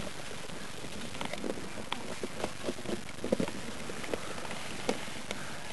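A person moving quickly on foot through dry leaf litter and undergrowth: footsteps and rustling, with irregular light knocks and clicks.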